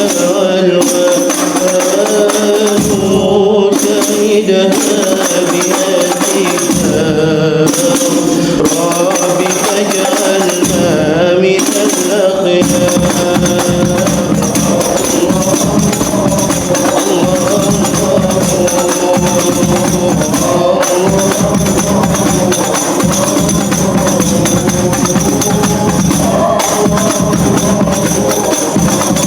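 Hadroh ensemble playing sholawat: a sung melody over jingling tambourine and frame drums. The low drum rhythm fills in fully about twelve seconds in and keeps a steady beat after that.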